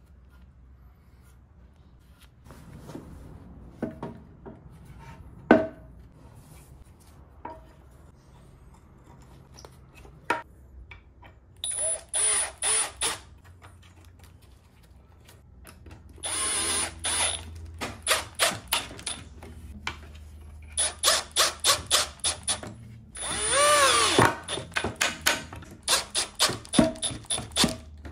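Cordless drill driving screws into a wooden chair arm, run in many short trigger bursts and a few longer runs, the motor dipping in pitch under load and picking up again near the end. Light knocks and clicks of handling the chair come first.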